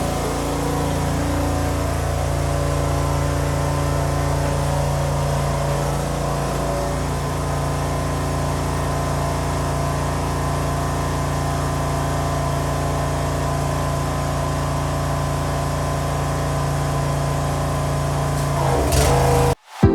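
Pressure washer engine running steadily, with the hiss of the high-pressure water jet as it blasts the sandstone paving. The sound cuts off suddenly near the end.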